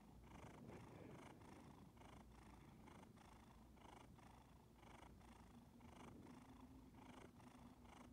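Orange tabby cat purring close to the microphone, a soft continuous purr broken by short, regular pauses.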